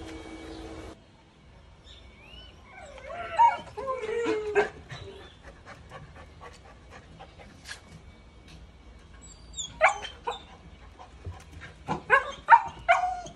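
A three-month-old puppy whining in cries that slide up and down in pitch a few seconds in, then a quick run of high yips and short barks near the end.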